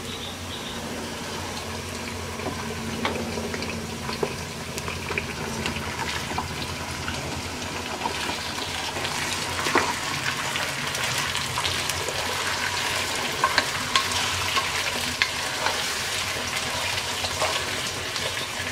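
Chicken frying in hot oil with chopped onions in a pot, sizzling steadily while being stirred, with scattered clicks and knocks of the spoon against the pot. The sizzle grows a little louder about halfway through.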